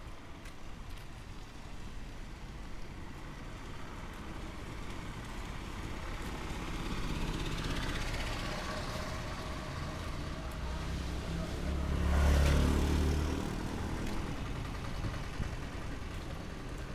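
A motor vehicle passing close by. It grows louder over several seconds, is loudest about twelve seconds in with a deep engine rumble, then fades away.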